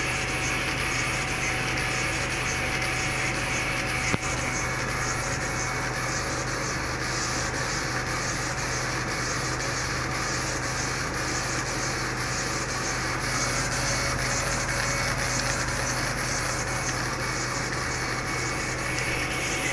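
Dual-head laser engraving machine running while it engraves wood: a steady mechanical whir and hiss with a constant low hum, and a single click about four seconds in.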